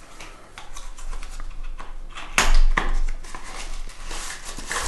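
Small cardboard product box being opened and handled: scattered clicks and rustles, with one louder bump about two and a half seconds in.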